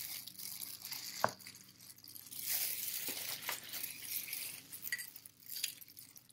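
Handling sounds with glassware: one sharp clink about a second in and a few fainter taps, over a high hiss and soft rustling.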